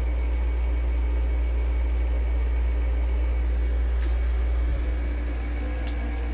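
Steady low mechanical hum with a faint high whine above it, easing slightly in level about five seconds in, with a couple of faint clicks.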